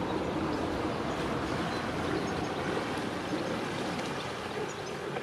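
Water churning and trickling steadily around a motor cruiser, with a boat engine running low beneath it.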